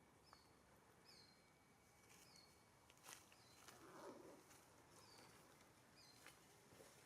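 Near silence: faint outdoor ambience with small high chirps, each falling in pitch, repeating about once a second, and a few faint clicks.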